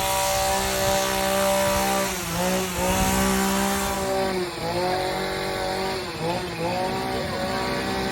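Small engine running at high speed, its pitch dipping briefly and recovering a few times.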